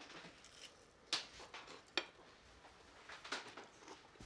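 A few faint, sharp clinks and taps of a fork, plate and small bowl being handled on a countertop, with quiet handling noise between them.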